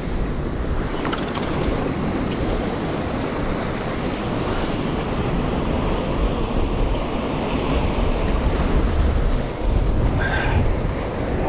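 Ocean surf washing against a rocky shore, with heavy wind buffeting the microphone. A short high-pitched sound comes near the end.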